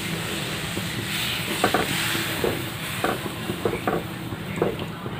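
A spatula stirring hot broth in a steel pot, knocking against the pot several times, over a steady hiss from the liquid.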